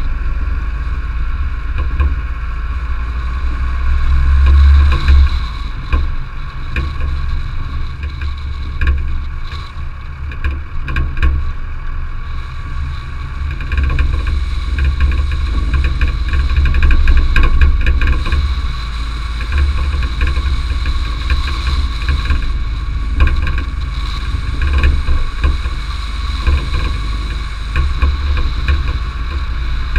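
Car driving along a gravel road: the engine runs steadily under heavy low rumble from wind and road, with scattered clicks of gravel under the tyres.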